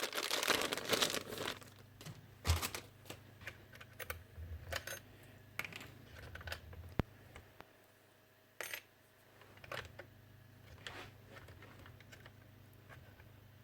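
Crinkling rustle, then scattered light clicks and taps of small plastic and metal parts being handled and fitted while a cordless nail gun's switch is replaced and the tool reassembled.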